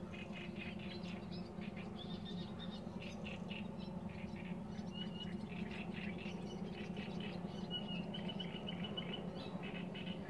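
Nightingale singing: a string of short varied phrases, with a fast run of repeated notes near the end, over a steady low hum.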